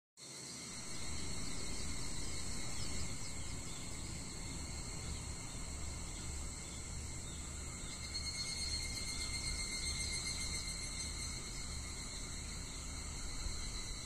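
Higurashi cicadas (Tanna japonensis) calling as a steady high ringing, with an even higher band joining from about eight seconds in until about eleven, over a low background rumble.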